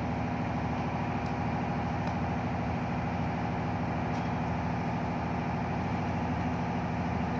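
A steady low mechanical hum, like a running motor, with a few faint clicks.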